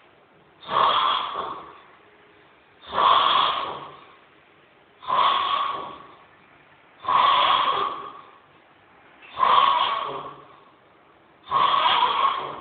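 A sleeper snoring in a steady rhythm: six snores about two seconds apart, each starting sharply and fading out over about a second.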